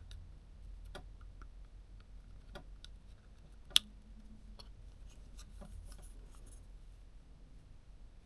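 Small scattered clicks and taps of tools and small parts of a camera lens being handled during disassembly, with one sharp click about four seconds in.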